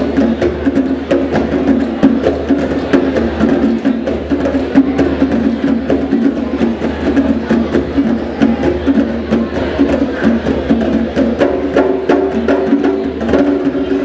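Several djembe drums played together by hand in a dense, steady rhythm, the sharp slaps and open tones of the drumheads overlapping.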